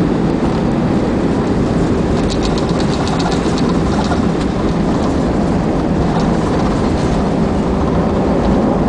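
Cabin noise of an Airbus A320 rolling out on a wet runway just after touchdown: a loud, steady rumble of engines and wheels. About two seconds in there is a brief rapid rattle of ticks.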